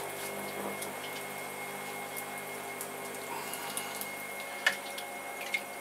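Electric pottery wheel running with a steady hum and a thin high whine, while wet hands squeeze and slide over a large hump of clay being coned up for centring, giving a soft, watery swishing. Two small sharp knocks near the end.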